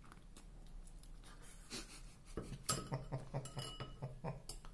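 Someone eating noodles at a table: a run of clicks and clinks of cutlery against a bowl, starting about two seconds in, with some briefly ringing.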